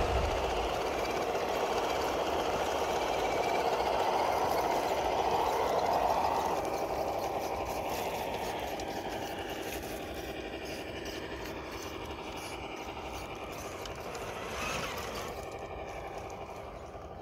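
Electric motor and gear train of a 1/10-scale RC Jeep Wrangler Rubicon rock crawler whirring and rattling as it crawls over rocks and dirt. The sound fades gradually, with a brief rise about fifteen seconds in.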